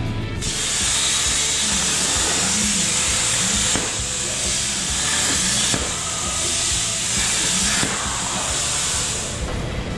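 Steady hiss of compressed air at a CNC plasma cutting table, breaking off briefly about every two seconds, over background music.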